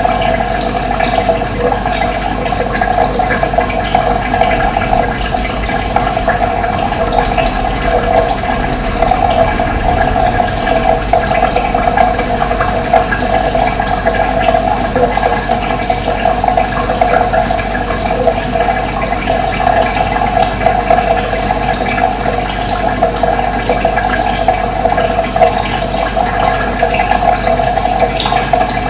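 Steady running water, with birds chirping now and then above it.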